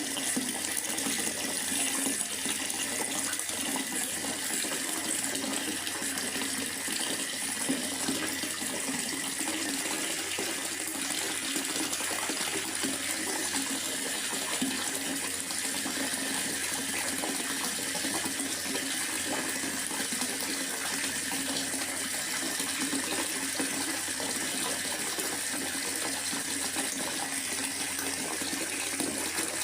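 Steady rain falling in a forest, an even, unbroken rushing hiss of water.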